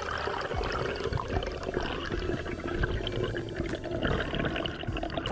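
Steady muffled rush of water and bubbles heard underwater through a GoPro action camera's housing, as the freediver moves up through the water.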